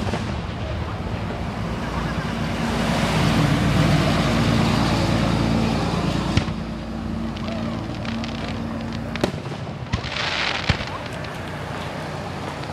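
Aerial fireworks going off: several sharp bangs in the second half, with a short hiss about ten seconds in. Under them is a steady low hum that stops about nine seconds in, and there is a swell of rushing noise in the first half.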